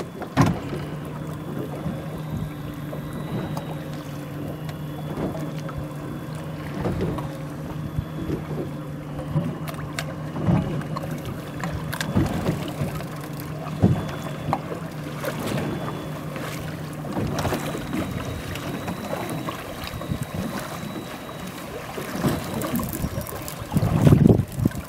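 Small fishing boat on the open sea: a steady low hum from the boat that stops about 17 seconds in, with wind on the microphone and irregular knocks and splashes of water against the hull.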